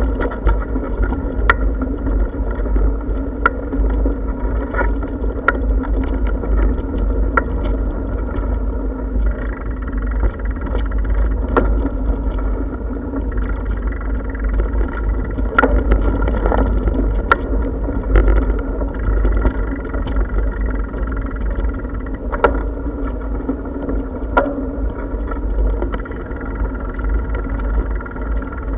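Riding a bicycle over brick paving, heard through a camera on the moving bike: a steady low rumble of wind and road vibration, with sharp clicks and rattles now and then.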